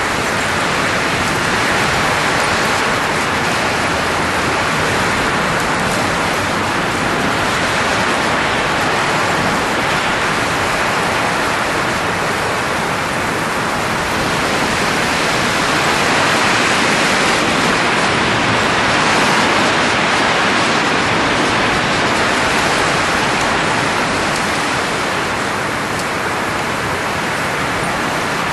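Blowing sound effect: a steady rush of air noise, hissing and even, that swells and eases slowly.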